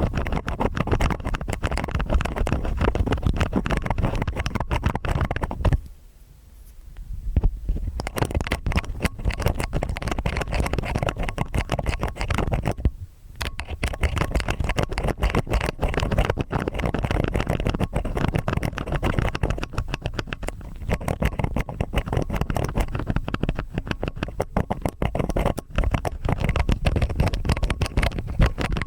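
Stainless steel ear picks scraping in both ears at once: dense, close-up crackling and scratching. It pauses for about two seconds near six seconds in and breaks briefly about thirteen seconds in.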